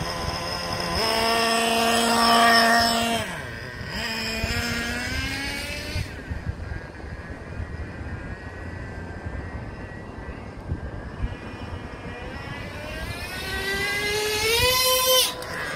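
Traxxas Revo 3.3 nitro engine screaming at high revs as the truck runs past, with a sharp drop in pitch about three seconds in and a fainter stretch mid-way. Near the end it climbs in pitch again and cuts off suddenly. The engine is running with its low-speed needle set too lean, the setting that permanently damaged it.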